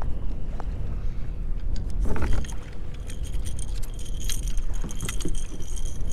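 Fishing reel clicking in quick runs of metallic ticks from about three seconds in, while a hooked catfish pulls against the bent rod, over a steady rumble of wind on the microphone. A short rush of noise about two seconds in.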